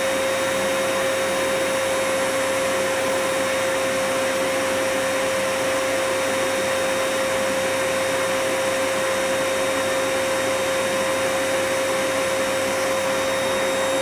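Air blower running steadily, a constant whine over the rush of air blown out through its tube.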